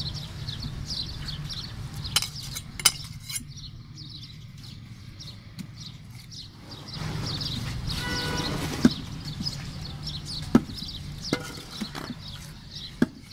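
A large knife slicing a fillet off a scaly fish on a round chopping block, with fine scratchy cutting sounds and several sharp knocks of the blade on the block. A steady low rumble runs underneath, and a short pitched tone sounds about eight seconds in.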